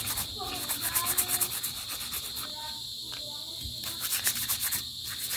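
Abrasive pad rubbed quickly back and forth along twisted brass wire, giving a scratchy rasp in two runs of strokes: one near the start and one about four seconds in. A steady high trill of crickets runs underneath.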